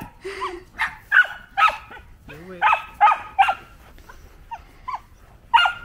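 A dog barking repeatedly in short, high-pitched yips, some coming in quick pairs about half a second apart.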